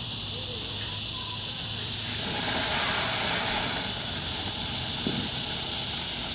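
Ground fountain firework burning: its fuse sputters, then it sprays sparks with a steady hiss that grows louder about two seconds in.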